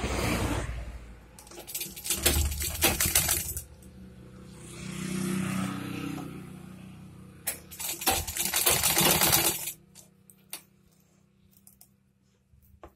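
Usha sewing machine stitching in several short runs of rapid metallic clattering, pausing between runs while the fabric is reset, and stopping about ten seconds in.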